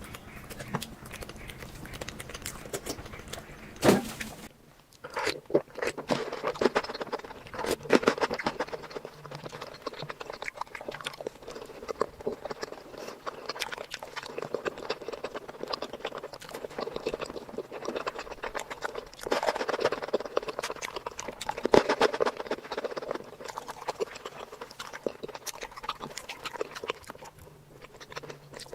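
Close-miked eating of sweets: chewing and biting with dense, moist crackling and frequent small clicks. A sharp knock comes about four seconds in, then a brief quiet before the chewing starts again.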